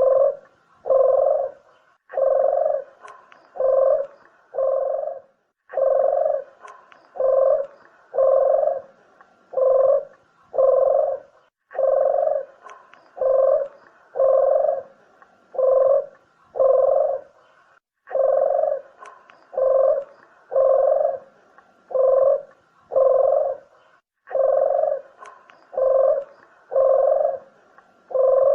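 Puter doves (ringed turtle doves) cooing over and over, a recorded lure call: about one coo a second in groups of about five, each group repeating roughly every six seconds.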